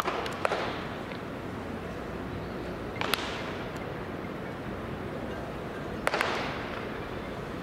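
Sharp cracks of a baseball bat striking pitched balls in batting practice, echoing around the stadium: one at the start and another half a second later, then single cracks about three and about six seconds in, over steady background noise.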